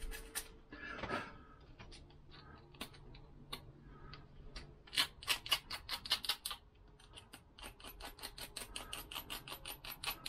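Wet-and-dry abrasive paper scrubbing metal by hand in quick scratchy strokes, about five a second, coming in runs: cleaning up an exhaust clamp.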